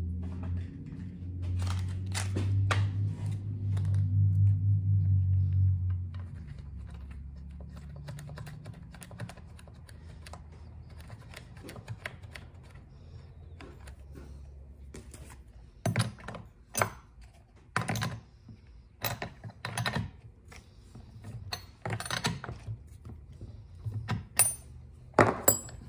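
Sharp, irregular metal clicks and clinks of a spark plug wrench being fitted onto and turned on the spark plug of a Stihl FS110 trimmer engine, coming in clusters through the second half. A low steady hum runs through the first few seconds.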